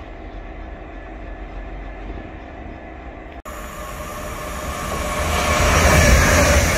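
A low steady rumble, then after a sudden cut a passenger train approaching, its rushing noise growing louder over the last three seconds.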